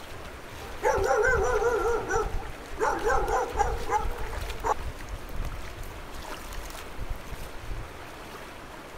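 A dog gives two drawn-out, wavering whines, starting about a second in, over the steady rush of a shallow stream.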